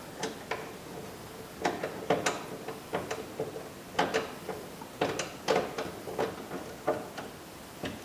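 Plastic inside door handle and its metal lock and latch rods clicking and rattling as the handle is worked in its opening in the door: a string of sharp, irregular clicks, a few per second.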